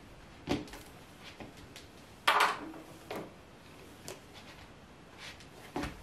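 Long hair being handled by hand, run through and flipped over the shoulders: a few brief rustles, the loudest about two seconds in.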